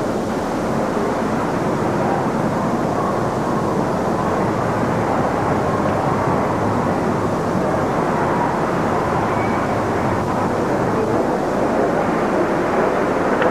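Steady outdoor background noise, a constant rush of distant street traffic with no single event standing out.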